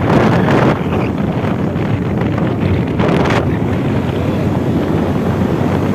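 Wind buffeting the microphone, a steady loud rumble with a louder gust near the start and another about three seconds in.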